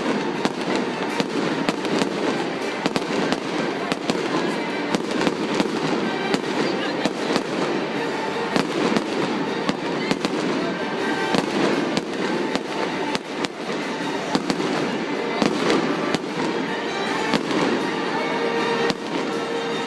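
Stadium fireworks display: a rapid, near-continuous run of sharp bangs, several a second, over a steady wash of noise.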